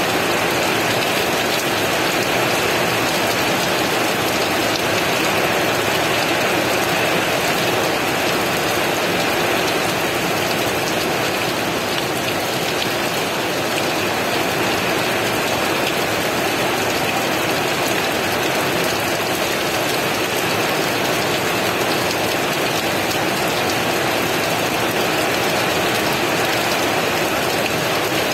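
Heavy rain falling steadily, a dense even hiss of many drops with no thunder.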